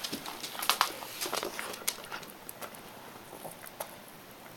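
A dog chewing and gnawing on a porterhouse steak bone: irregular clicks of teeth on bone, coming thick and fast for the first two seconds, then only now and then.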